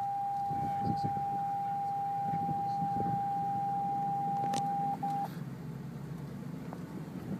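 A continuous electronic warning beep at one steady pitch, breaking briefly and cutting off about five seconds in, over the low hum of the 2014 Range Rover Sport creeping forward: the parking sensors' solid tone, warning that the car's nose is right up against the boarding ramp.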